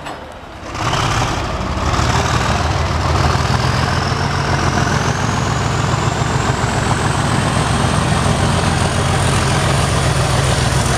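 Class 37 diesel locomotive approaching, its English Electric V12 engine running with a deep rumble. A high whistle rises in pitch over several seconds, then holds steady. The sound starts abruptly about a second in.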